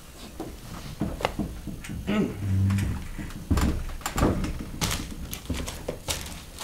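Irregular knocks, scuffs and footsteps of performers moving about a stage among wooden chairs, with a short low hum near the middle.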